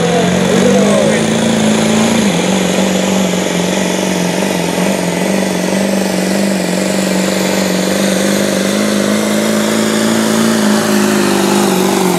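Ford pickup's diesel engine held at high, steady revs under full load while pulling a weight-transfer sled, its pitch dropping slightly about two seconds in and then holding.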